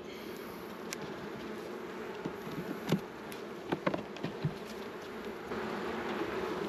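Honey bees buzzing around an open hive during a frame inspection, a steady hum, with a few light knocks and clicks in the middle.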